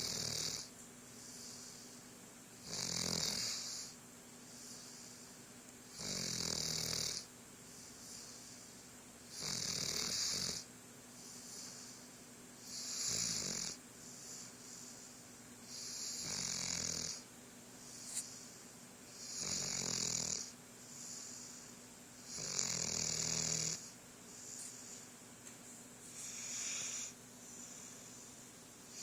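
Snoring in a slow, regular rhythm: nine snores, each about a second long, one roughly every three and a half seconds, with softer breathing between them.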